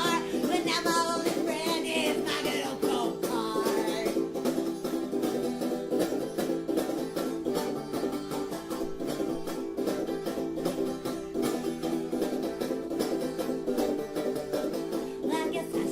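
Background music: fast, busy plucked-string playing with a banjo-like twang, steady throughout.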